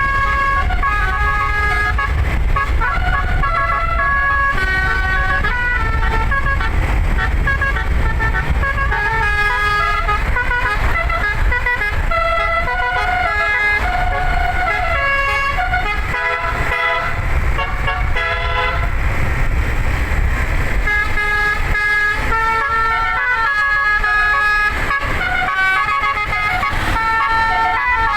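An 11-note 'basuri' musical air horn (bus telolet) playing a tune in held notes that step up and down, often several sounding together, with a few short breaks partway through. A steady low rumble runs underneath.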